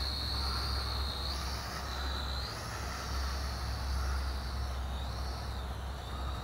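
JJRC H12C toy quadcopter's motors and propellers whining in flight, the high pitch shifting up and down as the throttle changes, over a steady low rumble.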